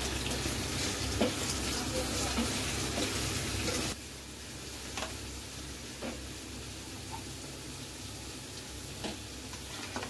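Chicken stock boiling in a large pot, a dense crackling bubbling, as rice is tipped into it. About four seconds in it drops suddenly to a quieter bubbling, with a few light clicks.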